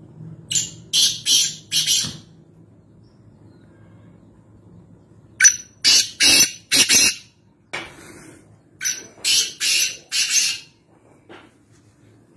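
Black francolin (kala teetar) calling: three harsh, rasping call phrases a few seconds apart, each a short note followed by three grating notes.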